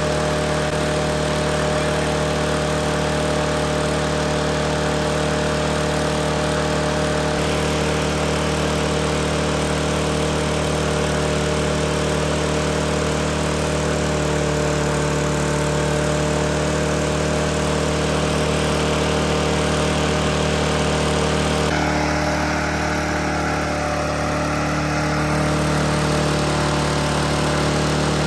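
Riding lawn mower engine running steadily, its note shifting slightly about twenty seconds in.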